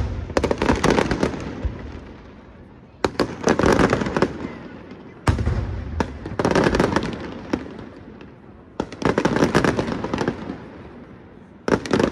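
Aerial fireworks shells bursting, a sharp bang every two to three seconds, each followed by a dense crackle that dies away over the next couple of seconds.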